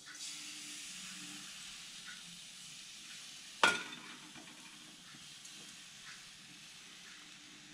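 Thin milk pancake batter sizzling as it hits a hot frying pan oiled with sunflower oil, a steady hiss that sets in at once and slowly dies down as the batter spreads. About three and a half seconds in, a single sharp clack, the metal ladle knocking against the pan.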